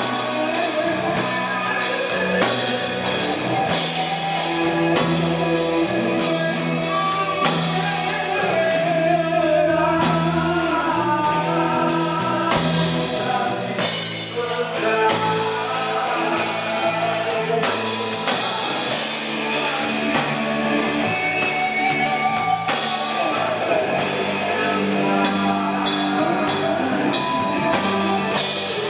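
Live rock band playing: electric guitars, electric bass and a drum kit, with a steady drum beat under the guitar melody.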